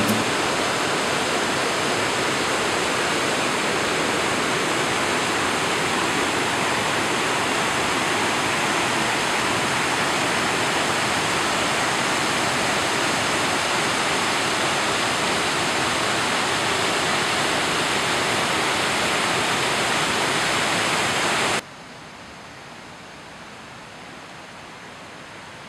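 Rushing water of a mountain stream tumbling down rocky cascades, a loud, steady rush. About three-quarters of the way through it cuts off suddenly to a much quieter background hiss.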